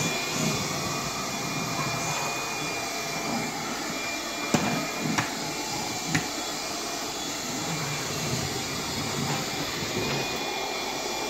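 Bissell PowerGlide cordless stick vacuum running steadily on low power with the brush roll off, an even rushing noise with a thin high whine over it. Three light knocks come a little under halfway through, as the cleaner head bumps against something.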